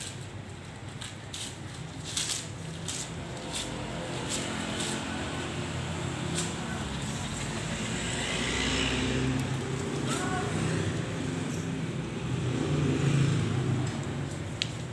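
A Shih Tzu and a Corgi play-fighting: low, rough growling that grows louder toward the middle and again near the end, with scuffling and scattered sharp clicks.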